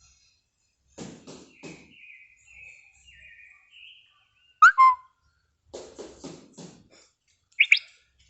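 A small bird pecking at a car's roof: a quick run of three knocks about a second in and another run of four around six seconds, with chirping between them and two sharp, loud calls, one in the middle and one near the end. The bird is attacking the car, which the owner thinks is because it sees its own reflection and fights it.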